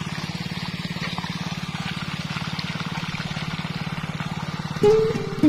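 Small engine-driven irrigation water pump running steadily with a fast, even throb. Guitar music comes in near the end.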